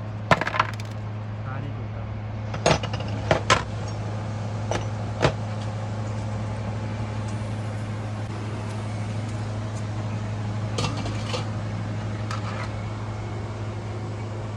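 Metal tools and parts clinking and knocking against each other in short sharp strikes, a few close together early on and a couple more near the end, over a steady low hum.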